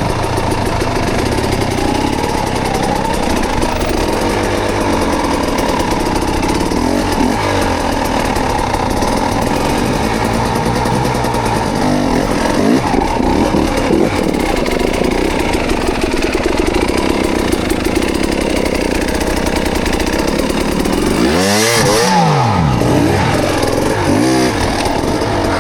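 Off-road motorcycle engine running hard under load on a rocky climb, its revs rising and falling throughout, with a sharp rev up and back down near the end.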